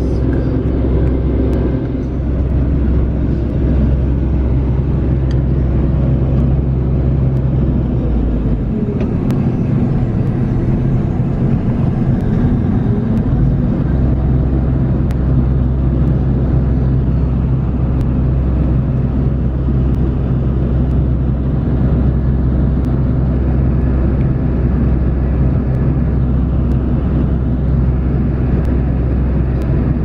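Claas Dominator 208 combine harvester running steadily at working speed as its unloading auger pours sunflower seed into a trailer. The low engine drone thins for a few seconds about nine seconds in, then returns.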